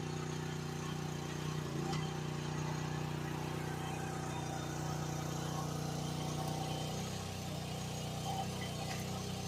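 GroundHog KH14G mini excavator's engine running steadily, with an even hum.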